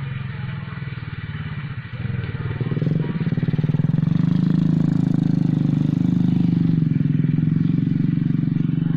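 A small combustion engine running steadily nearby. It grows louder about three seconds in, then holds at a constant pitch.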